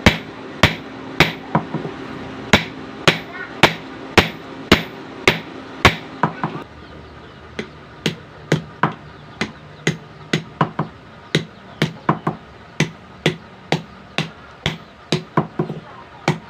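Hand hammer striking steel on an anvil while forging a knife blade, at about two blows a second with a short pause partway through. A steady hum runs under the first third and stops about six seconds in.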